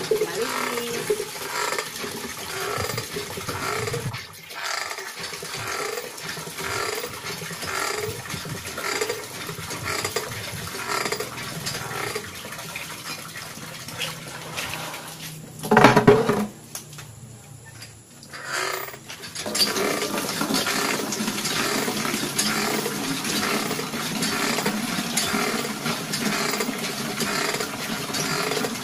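Cast-iron lever hand pump worked in a steady rhythm, each stroke of the handle sounding in turn, with water gushing from the spout into a plastic bucket. A little past halfway the pumping stops with one loud knock and a few quieter seconds, then the rhythmic strokes resume.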